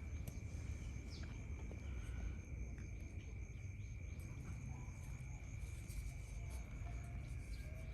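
Insects, crickets or a similar chorus, giving a steady unbroken high drone over a low rumble, with a few faint clicks.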